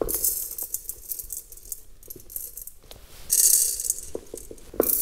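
Small aquarium gravel poured into a terrarium, the pebbles rattling and clicking as they land. It comes in two pours: one at the start, and a stronger one a little past three seconds in, with a few single clicks near the end.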